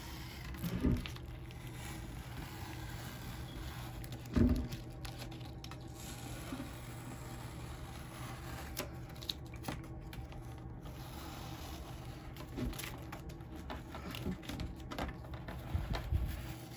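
Masking tape being peeled off the edge of a painted canvas: faint crackling scrapes, with two soft handling thumps in the first few seconds.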